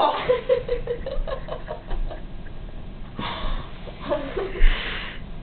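Silly vocal noises made with the nose and mouth: a loud burst at the start, then a quick run of short pitched pulses, about six a second, and two more breathy bursts later on.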